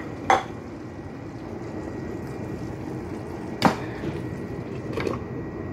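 Pot of bulgur in tomato broth simmering on a gas hob, a steady bubbling hiss. Three short sharp knocks cut through it: one just after the start, the loudest past the middle, and one near the end.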